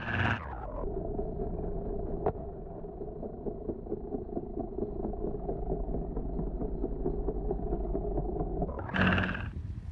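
Small piston helicopter flying low overhead, its engine and rotor running steadily with a fast rhythmic chop. A short, louder rush of noise comes at the start and again about nine seconds in.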